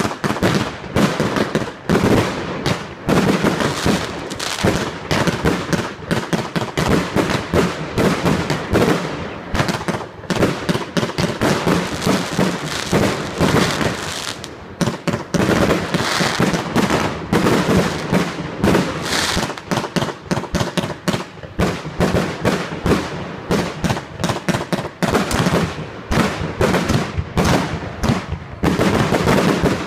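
Aerial fireworks display: a continuous barrage of shells launching and bursting, several bangs a second with no let-up.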